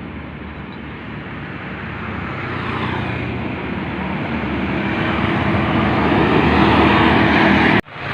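A motor vehicle approaching along a road, its engine and tyre noise growing steadily louder; the sound breaks off abruptly near the end and comes back at once.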